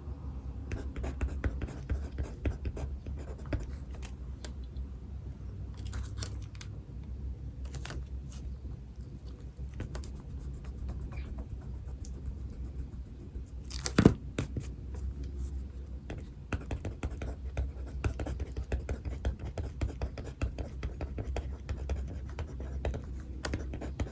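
Pen writing on paper, a run of short scratching strokes over a steady low background rumble, with one sharp knock a little past halfway.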